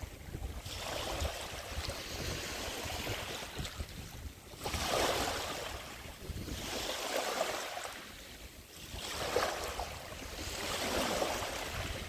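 Small waves washing up on a pebbly sand beach and running back. About four gentle washes of surf rise and fall, a few seconds apart.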